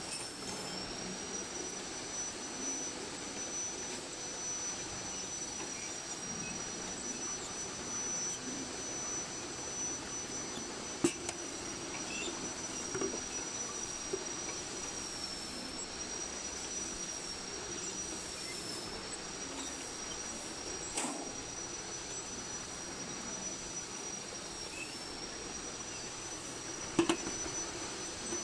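Automatic tape-around sealing machine for tins running, with a steady high whine that wavers slightly in pitch and a few sharp clicks from its mechanism.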